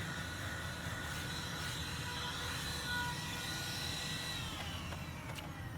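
Small cordless handheld vacuum cleaner running with a steady whine while cleaning car carpet through its brush attachment. About four seconds in, the motor winds down, its whine falling in pitch.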